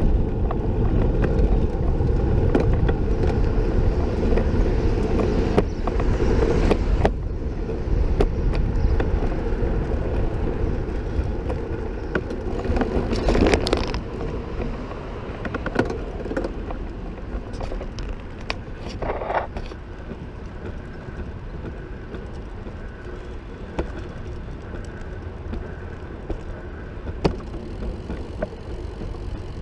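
Wind rush and rolling road noise from a recumbent trike under way, with a few sharp knocks from the wheels or frame over bumps. It gets quieter about halfway through.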